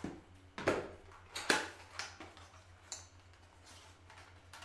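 Scissors cutting into plastic product packaging, with the plastic crinkling: a few sharp snips, the loudest about a second and a half in.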